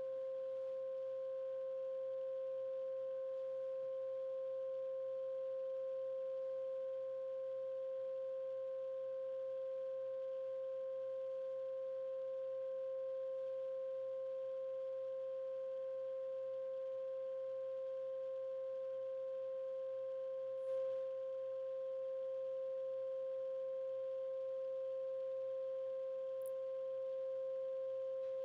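Steady electronic 528 Hz solfeggio tone, held at one pitch and level without change, with faint overtones above it.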